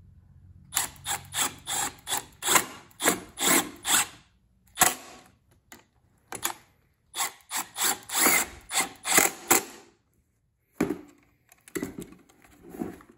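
Cordless drill/driver driving screws into the side of a steel e-track shelf bracket, heard as two runs of sharp clicks about three a second with a pause between, followed by a few softer knocks of the parts being handled.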